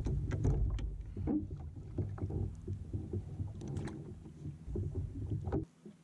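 A low rumble of water and wind around a fishing kayak at sea, with scattered knocks and clicks of rods and gear being handled aboard. The rumble cuts off abruptly shortly before the end.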